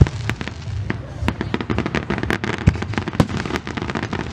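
Aerial firework shells bursting, a rapid irregular series of sharp bangs and pops, two or three a second.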